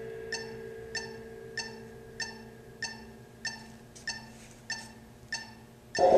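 Steady ticking, about one tick every 0.6 seconds, over a faint fading hum. Near the end a suspended cymbal is struck with mallets and swells into a loud wash.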